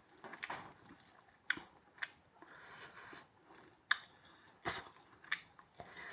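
A person chewing pork, with sharp mouth clicks and smacks about once a second, the loudest a little before the end.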